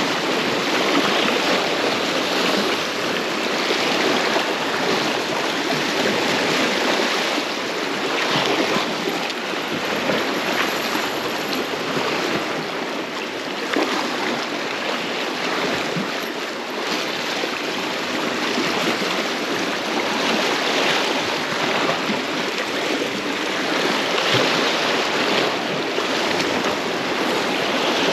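Small sea waves washing and splashing at the shore, a steady rushing of water that swells and eases.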